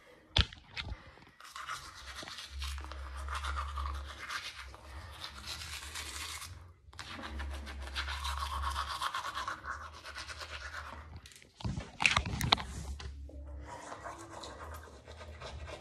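Teeth being brushed with a toothbrush: wet scrubbing in two long spells with a short pause between them. A few sharp, louder knocks come about twelve seconds in, followed by softer brushing.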